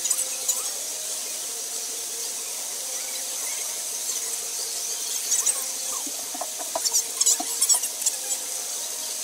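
Felt-tip marker squeaking across drawing paper in quick short strokes, the squeaks coming in clusters, thickest from about five seconds in to near the end.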